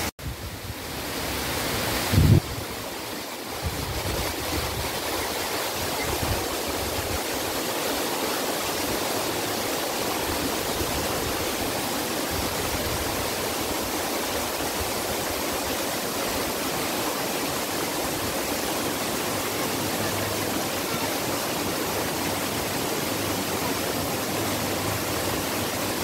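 Steady rushing of a small rocky stream spilling over little cascades, with one brief low thump about two seconds in.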